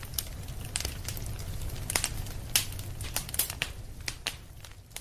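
Wood campfire crackling, with irregular sharp pops over a low steady rumble of the flames.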